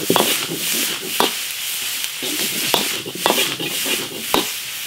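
Beef and chili peppers stir-frying in a wok: a steady sizzle of hot oil, with the spatula scraping and knocking against the pan about five times.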